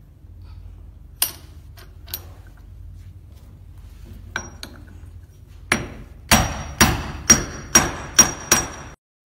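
Steel hammer blows on the steel die parts of a puffed-snack food extruder, driving a steel rod seated in the die sleeve. A few light metal clinks, then seven sharp ringing strikes about two a second that stop abruptly.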